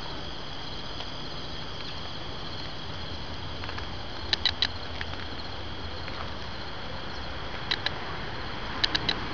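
Outdoor ambience with insects chirping: short chirps in groups of two or three every few seconds, over a steady background hiss and a faint high drone.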